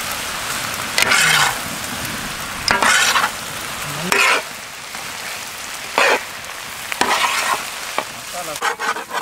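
Metal ladle scraping and stirring boiled turkey meat in a large iron kadai, in short strokes about every one to two seconds, over a steady sizzle of frying.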